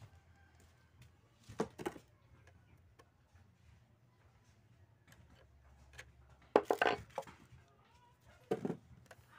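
Sharp metallic clicks and knocks of pliers and a small bolt and nut being handled on a floodlight's metal mounting bracket. They come in three short clusters, the loudest about seven seconds in.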